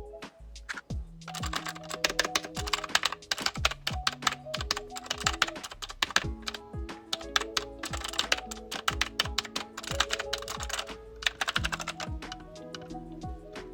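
Fast typing on an AULA F3087 mechanical keyboard: a dense run of keystrokes starting about a second in and thinning out near the end, over background music with a steady beat.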